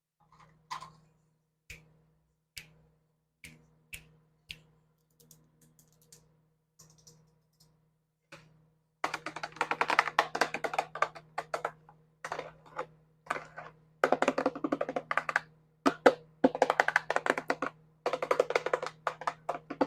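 Fingernails tapping on a hard surface: single crisp taps about once a second at first, then from about halfway fast runs of rapid tapping in bursts of a second or two.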